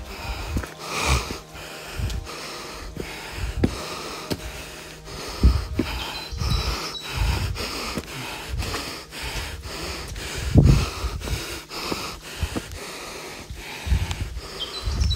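A hiker breathing hard, close to the microphone, over a steady run of footsteps.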